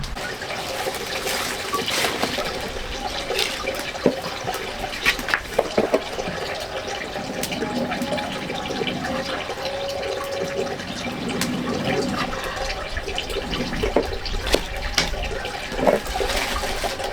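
Water running and splashing, with scattered clicks and knocks.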